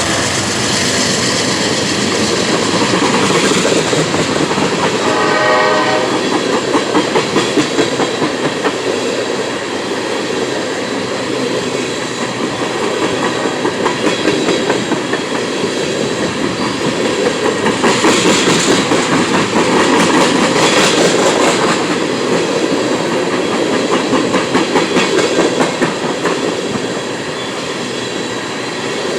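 A CSX freight train of tank cars rolling past close by, with a steady heavy rumble and the rhythmic clickety-clack of wheels over rail joints. A brief pitched tone sounds about five seconds in.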